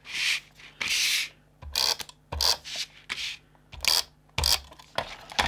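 Double-sided tape runner drawn in short strokes along cardstock flaps, with a rasping, ratcheting sound on each stroke, about eight strokes in all.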